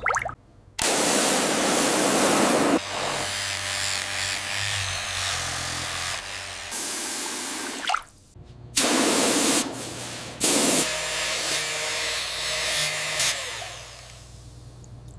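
Water spray hissing in bursts: a loud blast about a second in, softer steady spraying for several seconds, then two short blasts past the middle before it dies down, with a steady low hum underneath.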